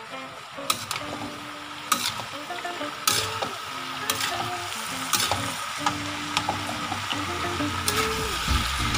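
Diced pork, potatoes and carrots sizzling as they stir-fry in a stainless steel wok, with a metal spatula scraping and clinking against the pan roughly once a second.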